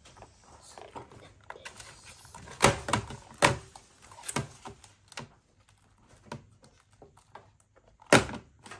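Blue glue-and-activator slime being squeezed and kneaded by hand in a plastic tub: irregular wet squelches and pops, a few louder ones in the middle and one more near the end as it is pulled up.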